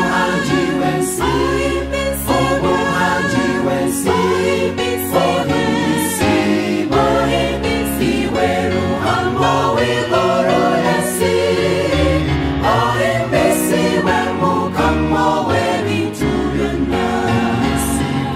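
Mixed choir of women's and men's voices singing a gospel song in harmony.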